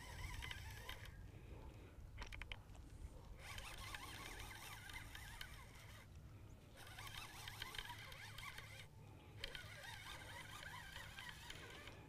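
Faint zipper-like whirring of a fishing reel being cranked while a small hooked bass is played on the rod.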